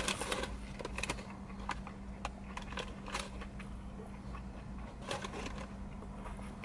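Close-up chewing of a crispy fried falafel ball: small, irregular crunches and wet mouth clicks, over a faint steady low hum.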